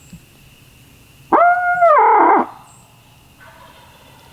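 A turkey hunter's locator call blown close by, made to draw a shock gobble from a roosted gobbler: one loud call about a second in, a held steady note that turns harsh and falls off. A much fainter rough sound follows near the end.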